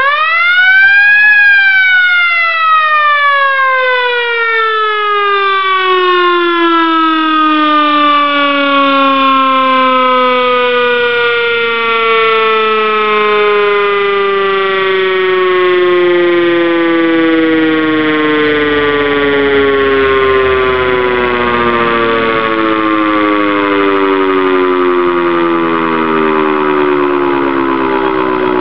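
Loud B&M Super Chief electromechanical siren on a Spartan fire engine, winding up fast to its peak about a second in, then coasting down in one long, slowly falling wail that is still sounding at the end. The siren is not yet fully broken in.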